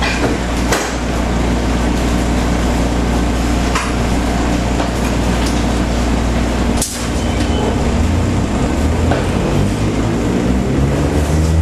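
Onboard running sound of a KCR MLR electric multiple unit's motor car: a steady rumble of wheels on rail with a few sharp clacks. In the last third the nose-suspended traction motors' whine climbs steadily in pitch as the train accelerates.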